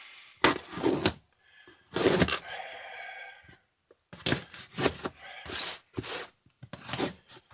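A shipping package being torn open by hand: irregular ripping and crackling of packaging in short bursts, with one longer rip about two seconds in.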